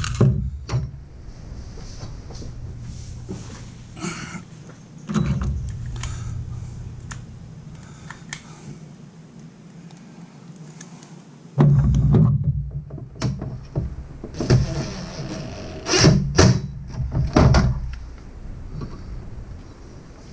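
Scattered clicks and knocks from parts and screws being handled in a metal electrical enclosure and a steel parts bowl, over a steady low hum. A low rumble starts suddenly about twelve seconds in, with several loud knocks during it, and dies away a few seconds later.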